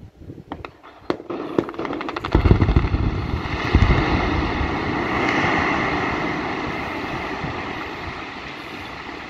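Quarry blast: a quick run of sharp cracks as the delayed charges go off in sequence, then two deep booms about a second and a half apart, followed by a long rumble that slowly fades.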